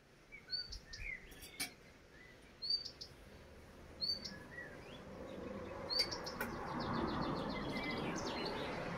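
Small birds chirping, with short repeated high chirps and a quick rattling trill about six seconds in. A low rushing noise swells over the second half.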